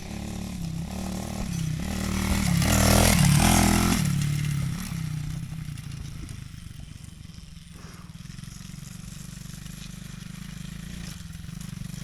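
A small off-road engine revving up and down, loudest about three seconds in, then fading and running on steadily at a distance.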